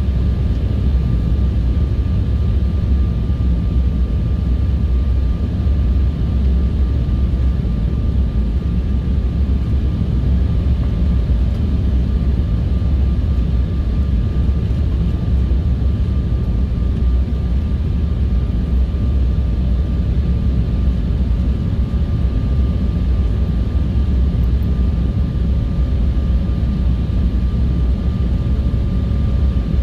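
Steady cabin noise of a jet airliner in flight, heard from a window seat: a deep, even rumble of engines and rushing air with a thin, steady whine over it.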